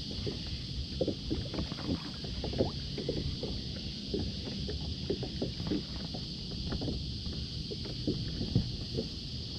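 Water splashing and lapping around a kayak on a river, with many small irregular knocks and drips against the hull and a steady hiss behind.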